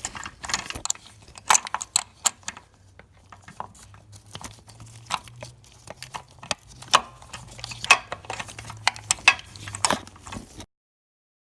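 Metal hand tools (a spark plug socket and extension) clinking and knocking against each other and the engine in irregular sharp clicks, over a faint low hum. The sound cuts off suddenly near the end.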